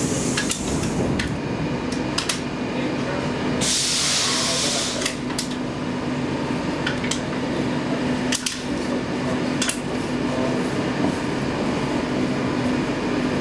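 Inside a Stockholm C14 metro car standing at a platform: the car's equipment hums steadily. A hiss lasting about a second and a half comes about four seconds in, with a few light clicks here and there.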